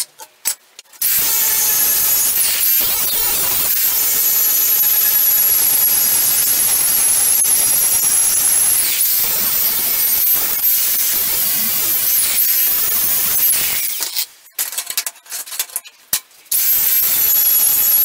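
Angle grinder with an abrasive disc grinding the face of a steel plate cut from an old saw blade: a loud hiss with a high motor whine that sags in pitch several times as the disc is pressed in. It stops briefly just after the start and again for about two seconds near the end, then runs on.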